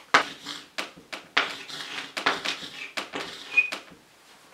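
Chalk writing on a blackboard: a quick run of scratching and tapping strokes as a short word is written, with a brief high squeak about three and a half seconds in.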